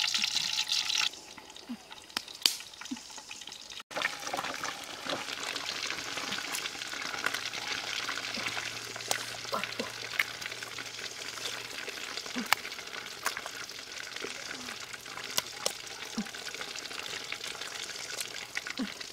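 Eggs frying in hot oil in a wok: a steady sizzle with scattered sharp crackles and pops, starting about four seconds in.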